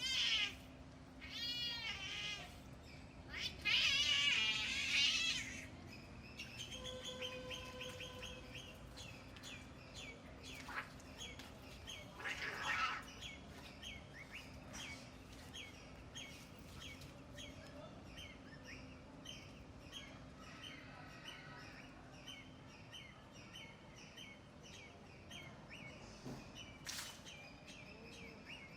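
Cats yowling in a fight: three loud, drawn-out wavering yowls in the first six seconds and a shorter cry about twelve seconds in. Small birds chirp over and over for the rest of the time.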